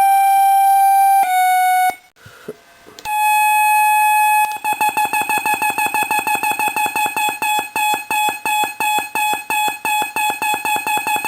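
Homemade audio-oscillator drone machine holding a steady electronic tone. The tone cuts out for about a second, two seconds in, and comes back a little higher. From about four and a half seconds it becomes a rapid even pulsing of about six beats a second, as a low-frequency oscillator triggers the high-frequency one.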